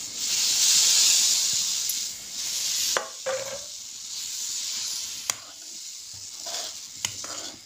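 Roasted semolina poured into boiling sugar syrup in a metal pan, setting off a loud sizzling hiss that fades over about two and a half seconds. The mixture is then stirred with a spoon under a weaker hiss, with a few sharp clicks of the spoon against the pan.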